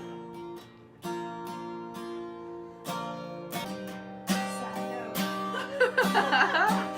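Acoustic guitar strummed, chords ringing between strokes, with a brief gap about a second in; a voice comes in over the guitar near the end.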